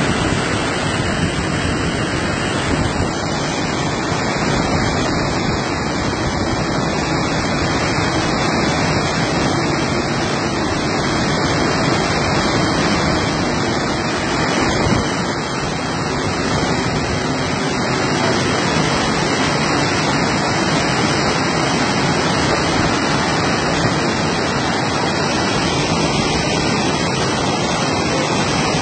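Muddy floodwater pouring over the crest of a concrete irrigation weir and rushing down its spillway, a loud, steady rush of water.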